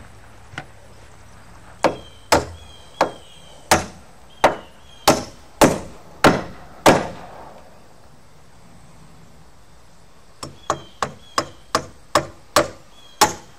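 Hammer driving nails into a wooden roof truss: a run of about nine blows, a pause of about three seconds, then a quicker run of blows.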